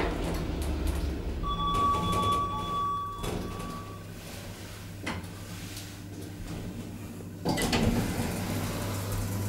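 1999 Schindler traction elevator car running with a low hum that dies away about a second in as it stops; a single held electronic tone sounds for under two seconds, then a click, and the car's automatic sliding doors open about two seconds before the end.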